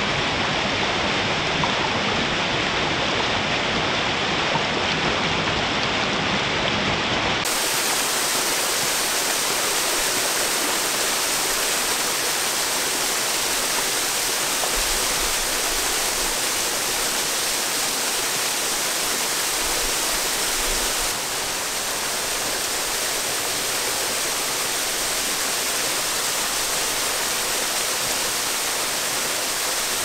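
A waterfall running full, its water pouring and splashing in a steady rush. About seven seconds in, the sound turns brighter and hissier.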